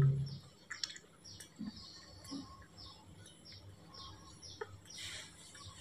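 A faint series of short, falling chirps, two or three a second, typical of a small bird calling in the background, with a few soft clicks and gulps from a baby monkey sucking milk from a bottle.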